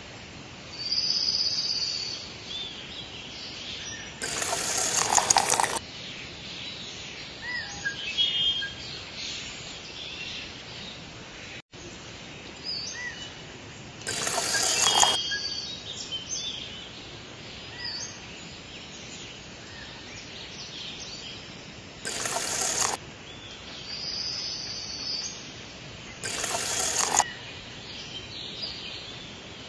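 Small birds chirping and calling over a steady outdoor background hiss. Four times, a loud rushing burst of noise lasting a second or so cuts in over the birds.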